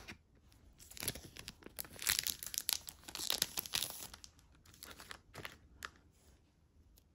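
Packaging being crinkled and torn by hand: a run of crackling rustles, densest and loudest in the middle, thinning out near the end.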